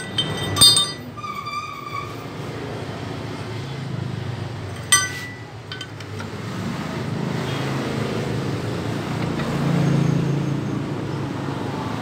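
Metal parts clinking as hands handle the exposed clutch assembly of a Bajaj Pulsar 150 engine. There is a sharp ringing clink about half a second in and another about five seconds in, over a steady low rumble.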